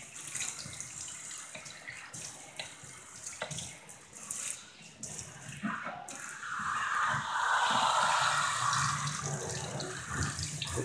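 Water from a sink sprayer hissing onto a wet dog's fur and splashing in a stainless steel deep sink, rinsing out shampoo. The spray grows louder for about three seconds past the middle, then eases back.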